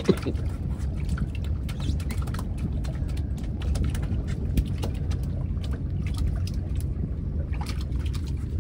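Water lapping and splashing against a small boat's hull, over a steady low rumble of wind on the microphone, with scattered light ticks.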